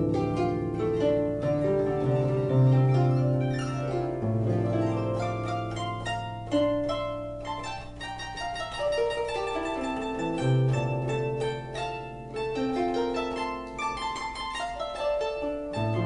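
Harp music: a melody of quick plucked notes over sustained low bass notes that change every few seconds.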